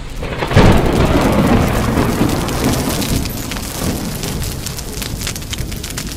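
End-screen sound effect: a sudden deep rumbling blast about half a second in, then a steady crackling roar that slowly eases off.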